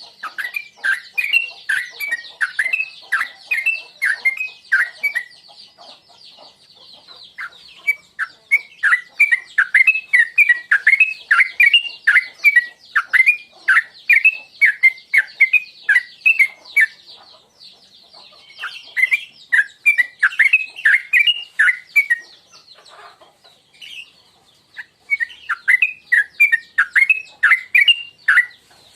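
Yellow-vented bulbul (trucuk) singing its bubbly 'tuklik tuklik ngingklong' song: bouts of rapid, quick falling notes, broken by a few pauses of a second or two.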